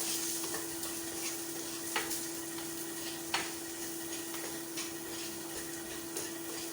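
Chopped onion, spring onion and tomato sizzling in olive oil in a pan as they are stirred, with a couple of sharp clicks of the spoon against the pan.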